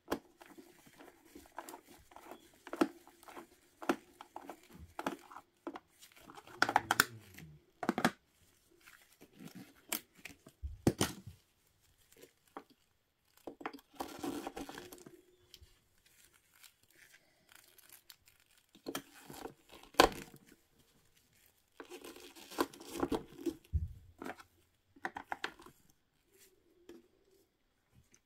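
Handling noises from the plastic back of a Magic Mixies talking mirror toy as a screwdriver works the battery-cover screw and the cover is handled: irregular clicks, scrapes and rustles, with one sharp click about twenty seconds in.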